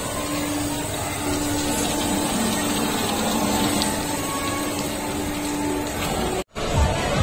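Steady mechanical hum of a children's tower ride's drive running as its caged seat lifts, with a faint steady tone that comes and goes. It cuts off suddenly near the end, and music with a regular beat starts.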